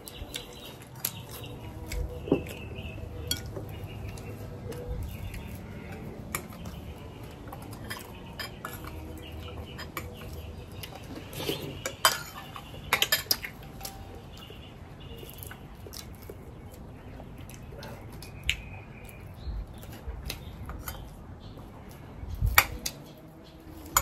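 Kitchen clatter: scattered clinks and knocks of dishes, pots and utensils being handled, with a quick run of them about twelve seconds in.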